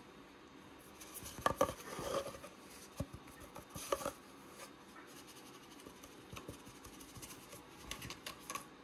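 Kitten's claws scratching and batting at an empty cardboard toilet-roll tube, in short scattered bursts of scratches and taps, the loudest cluster about one and a half to two seconds in and another near the end.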